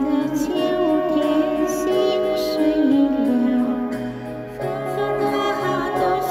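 A voice singing a Mandarin love ballad over backing music, with a short break between sung phrases about two-thirds of the way through.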